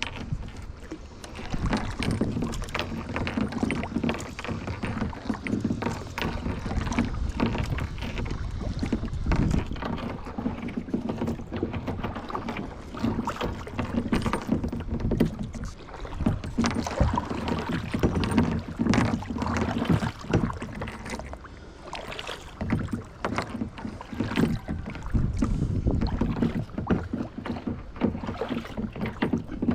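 Kayak paddles dipping and pulling through lake water, with repeated uneven splashing and water sloshing against the hull.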